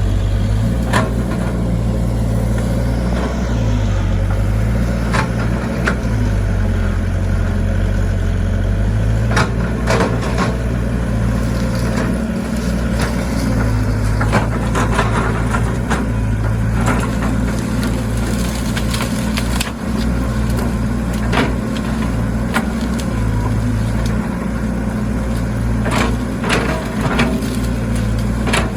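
Excavator engine running steadily, its note dipping and rising now and then as the hydraulics take load, with frequent short knocks and scrapes from the bucket digging into the ground.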